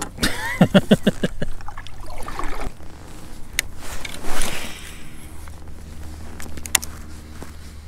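A cast with a fishing rod, a quick swish about four seconds in, followed by the reel winding the lure back in with a steady whir.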